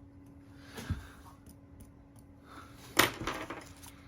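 Small tools and phone parts being handled on a repair bench: a soft knock about a second in, then a sharp clack with a short rattle about three seconds in, over a faint steady hum.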